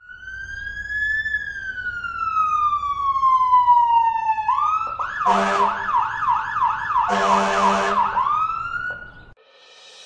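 Emergency-vehicle siren: one long wail that rises briefly, then falls slowly. It switches to a fast yelp of about three sweeps a second, rises once more and cuts off suddenly near the end. Two horn blasts sound over the yelp.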